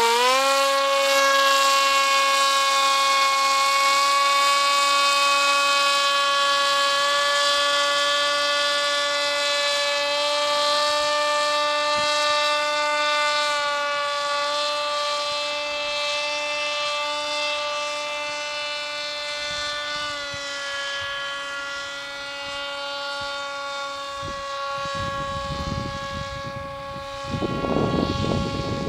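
Powered paraglider trike's engine and propeller droning at a steady high throttle. The pitch rises as it opens up at the start, then the drone fades slowly as the craft flies away. Near the end, gusty rumbling noise hits the microphone.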